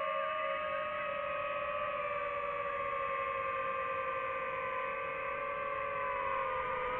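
DJI FPV drone's motors and propellers humming steadily, the pitch dipping slightly about two seconds in and again near the end.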